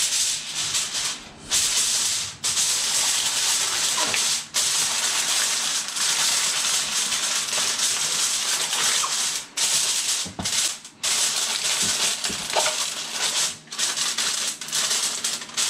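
Aluminium foil crinkling and rustling as it is pressed over a baking tray, in a continuous crackle with several brief pauses.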